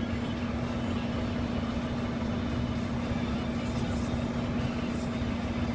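Steady mechanical hum, like an idling engine, with one constant droning tone over a low rumble.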